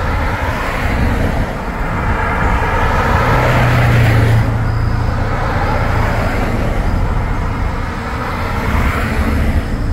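Road traffic driving past: tyre and engine noise swells as a vehicle goes by, loudest about four seconds in, and another vehicle passes near the end.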